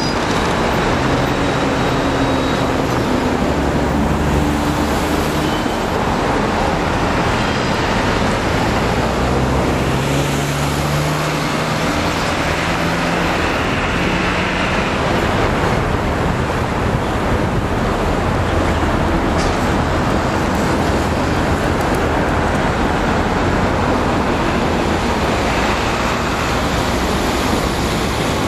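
Three EMD diesel-electric locomotives running as they move slowly off, their low engine drone changing pitch about ten seconds in and fading during the second half, over a steady wash of traffic noise.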